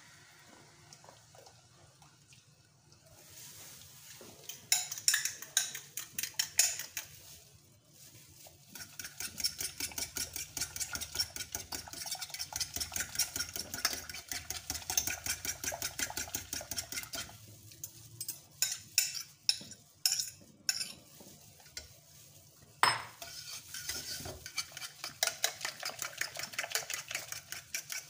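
Spoon stirring beaten egg into hot milk in a metal saucepan, clicking and scraping against the pan in a quick steady rhythm with a few louder knocks, starting a few seconds in. The stirring goes on over low heat to keep the egg from forming lumps.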